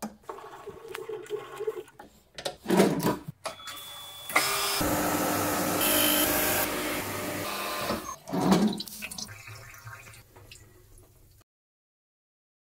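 Metal clunks of a workpiece being clamped in a vise. About four seconds in, a wet abrasive cut-off machine starts running, with coolant spraying for about four seconds. The noise then fades and stops abruptly.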